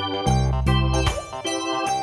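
Background music: an electronic keyboard tune with a steady run of bass notes.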